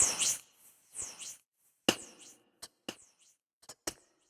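A plastic Rubik's Cube being turned by hand. There is a short scraping rush at the start and again about a second in, then a string of sharp, irregular clicks as the layers are twisted.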